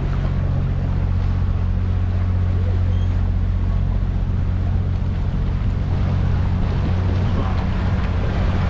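Open canal tour boat's motor running steadily under way, a low, even hum with water and wind noise over it.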